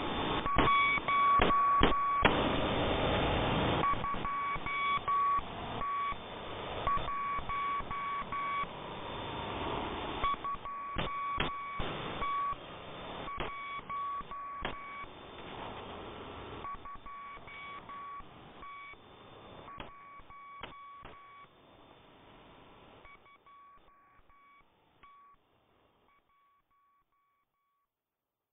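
Electronic beeps at one steady pitch, switching on and off irregularly over a hiss of static, with a louder stretch of static a couple of seconds in. The whole fades gradually to silence.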